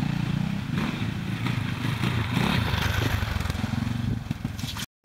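Off-road dirt bike engines running on a trail, the engine note rising and falling as the throttle is worked, cutting out abruptly just before the end.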